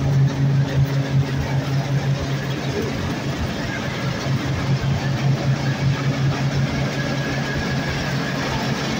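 MDW 525 combine harvester running steadily, its diesel engine and drives giving a constant low hum.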